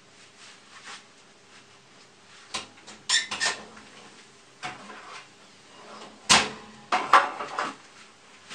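A scatter of sharp knocks and clacks, as of hard objects being picked up, moved and set down. They come singly and in short clusters, the loudest about six seconds in.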